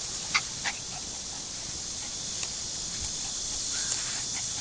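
Almost six-week-old doodle puppies yipping at play: two short high yips in quick succession, then only faint sounds.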